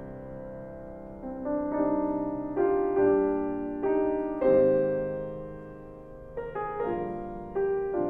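Solo piano playing a slow, gentle melody: single notes and chords are struck every second or so and left to ring and fade, with a quicker run of notes near the end.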